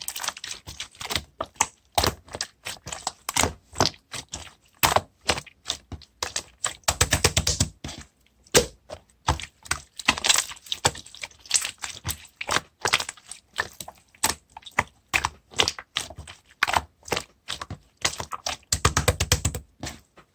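Slime being squished and pressed by hand, making irregular clicking and popping sounds from trapped air. Two fast runs of clicks come about seven seconds in and again near the end.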